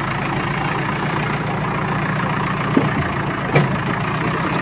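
A motor vehicle engine running at idle over steady street noise, with two short sharp sounds about three seconds in.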